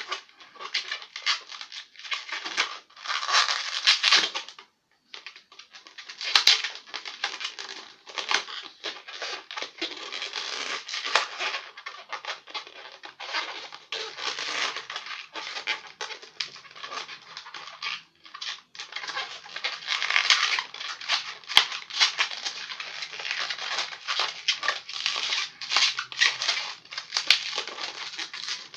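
Long latex modelling balloon squeaking and rubbing in the hands as it is twisted into a balloon dog, an irregular string of squeaks with a couple of short pauses.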